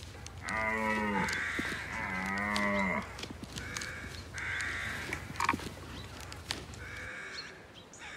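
Animal calls: two drawn-out, lowing calls in the first three seconds, then several short, harsh caws spaced about a second or two apart.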